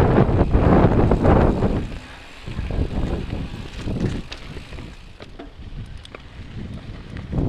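Mountain bike riding over a dirt trail: wind buffeting the microphone and the rumble and rattle of the bike over the ground, loudest in the first two seconds, then quieter with a few small clicks.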